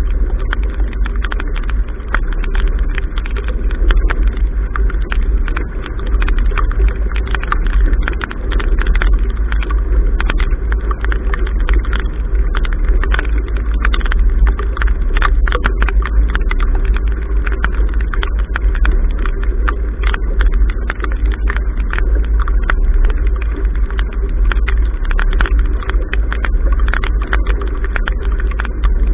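Wind buffeting a bow-mounted action camera, a steady low rumble, with many quick ticks of rain and spray striking the camera's case as the sailing yacht heels through choppy water in bad weather.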